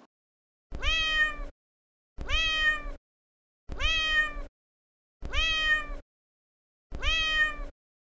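A domestic cat meowing five times, the same meow repeated at even intervals about a second and a half apart.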